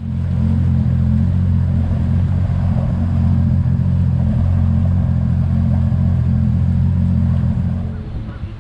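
A 250 hp outboard boat engine idling, a steady low drone, easing off in level near the end.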